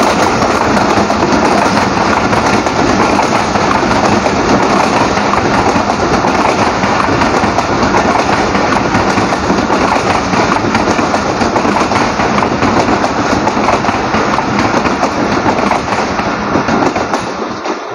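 Coaches of a Pakistan Railways passenger express rushing past close by at speed: a loud, continuous rattle and clatter of steel wheels on the rails. The noise starts fading near the end as the last coaches go by.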